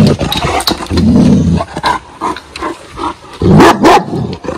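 A one-year-old Kangal dog barking deeply and loudly in three bouts, with a longer gap between about two and three seconds in.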